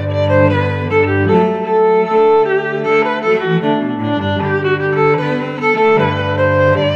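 Background music of bowed strings: a violin melody over lower strings, with a deep bass note that drops out for most of the middle and comes back near the end.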